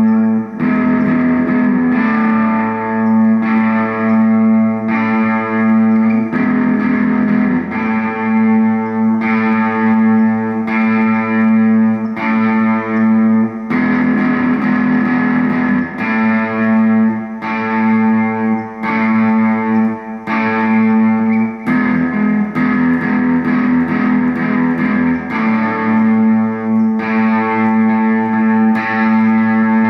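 Electric guitar music played through effects with distortion, over a steady held low note, going on rhythmically throughout.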